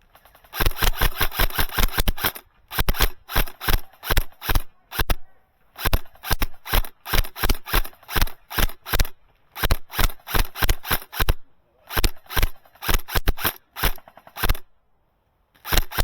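Airsoft gun firing on full auto in repeated bursts of rapid shots, some bursts close to two seconds long, with short pauses between them.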